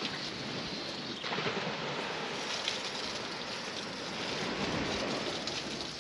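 Steady hiss of a pump-fed high-pressure hose spraying fresh water onto a Mercedes Unimog's portal axle hub, growing stronger about a second in. The spray is rinsing salt water off the portal axles.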